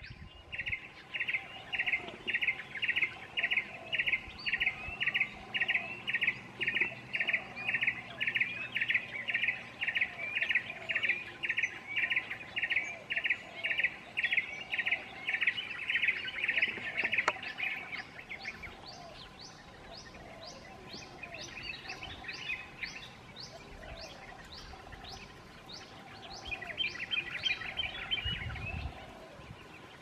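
Yellow-eared barbet calling: a long, even series of repeated notes, about two a second, that fades after some eighteen seconds. A fainter, higher-pitched repeated series follows, then a short, rapid burst of notes near the end.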